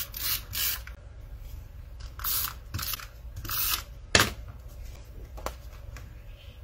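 Tombow adhesive tape runner drawn across the back of paper strips in five short rasping strokes, three quick ones and then two slower ones. A sharp click a little after four seconds is the loudest sound.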